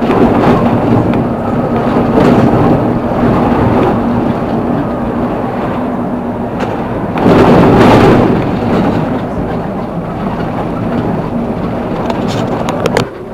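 Loud, steady rumble of wind and road noise from a vehicle driving along a street, swelling louder for about a second around seven seconds in as an oncoming car passes.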